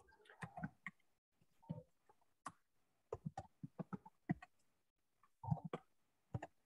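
Computer keyboard typing: faint, irregular clicks in short bursts.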